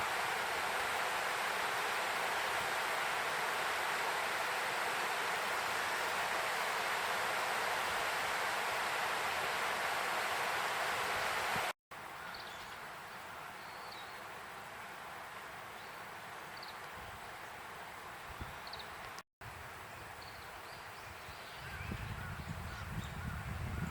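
Steady rush of river water, cutting off after about twelve seconds to quieter open-air ambience with scattered faint bird chirps. A low rumble rises near the end.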